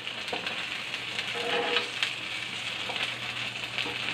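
Egg and sardine omelette frying in hot cooking oil in a pan: a steady sizzle with scattered crackles.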